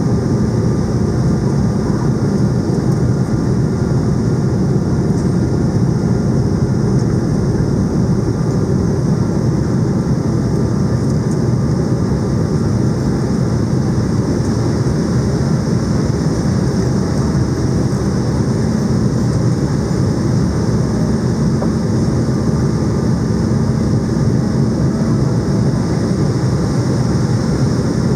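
Steady cabin noise inside an Embraer E190 airliner on approach to land: the low hum of its General Electric CF34 turbofans and air rushing past the fuselage, with a few faint steady tones over it.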